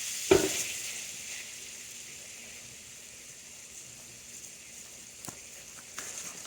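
Butter sizzling softly in a pan, fading a little over the first seconds. A sharp knock comes about a third of a second in, the loudest sound, and a couple of light clicks follow near the end.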